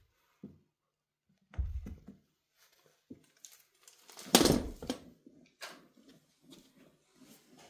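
Scattered knocks, bumps and rustling as a cat plays with its toys, the loudest a sharp clatter about four and a half seconds in.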